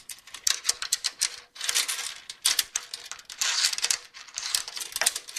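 A quick, uneven run of crisp clicks and clatters, like typing, used as a sound-effect break in a hip-hop dance routine's music mix.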